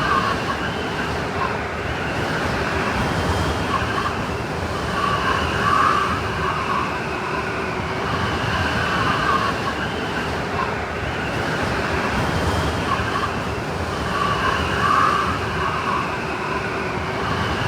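Snowstorm wind blowing steadily, with whistling tones that swell and fade twice.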